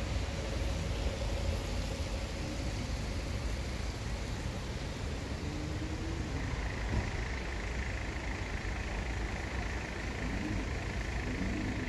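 Steady outdoor background rumble and hiss, with a few faint short voice-like sounds. A faint steady high tone comes in about halfway.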